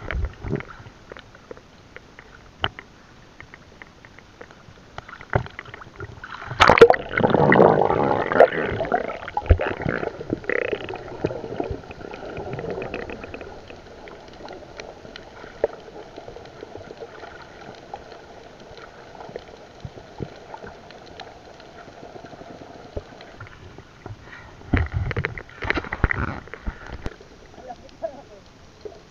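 Muffled gurgling and rushing water heard through a microphone underwater, with scattered clicks and knocks. A louder rush of bubbling water starts about seven seconds in and lasts about three seconds, and a shorter one comes near the end.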